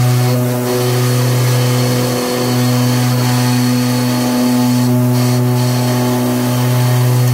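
Concrete sleeper casting machine running, its bank of motors giving a loud steady low hum that dips briefly about every two seconds.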